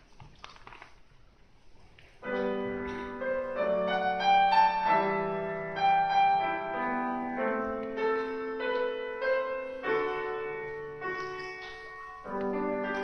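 Faint hall noise, then about two seconds in a grand piano begins a solo introduction, with a melody over struck chords and a fresh chord near the end.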